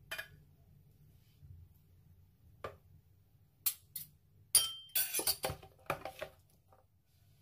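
Metal spoon clinking against a salad bowl while scooping salad out: a couple of single clinks, then a quick run of them in the second half.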